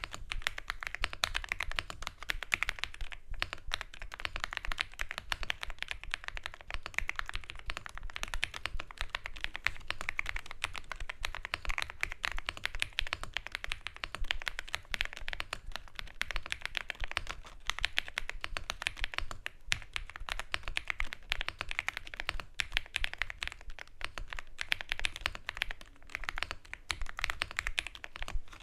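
Fast, continuous typing on a computer keyboard: a steady clatter of key presses with only brief pauses.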